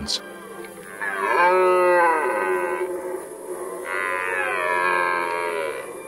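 Red deer stag roaring in the rut: two long, deep calls, each dropping in pitch toward its end, with a short pause between them. The rutting stag is showing off his strength and calling to attract hinds.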